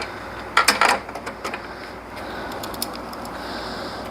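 Sharp metallic clicks and a short clatter of hand tools against engine parts about half a second to a second in, then scattered light ticks over a steady hiss.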